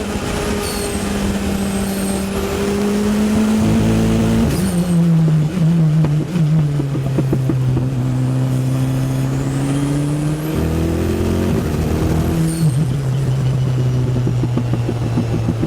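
Race car's four-cylinder Ford Zetec engine, heard on board, pulling through the gears. Its pitch drops at gear changes about four and a half seconds in and again near the end. The engine runs with the chronic misfire it had in third and fourth gear.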